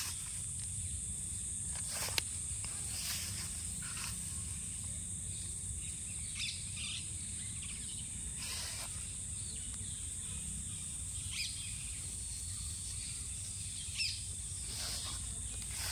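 Outdoor ambience dominated by a steady high-pitched insect drone, over a low rumble, with several short sharp chirps or clicks scattered through.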